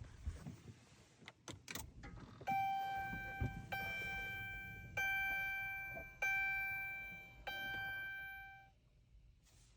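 Dodge Charger's in-car warning chime sounding five times, about one chime every second and a quarter, each a bright bell-like tone that fades away. A few faint clicks come before it.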